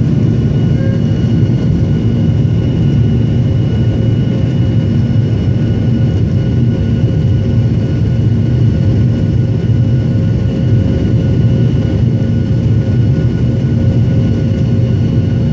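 Boeing 737-700's CFM56-7B turbofan engines at takeoff thrust during lift-off and initial climb, heard inside the cabin beside the wing: a steady, loud low rumble with a few steady whining tones above it.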